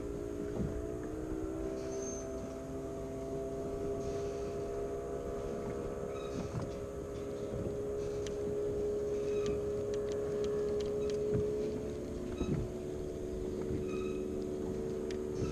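Steady drone of a boat engine running on the water, with light clicks and ticks from a spinning reel being reeled in.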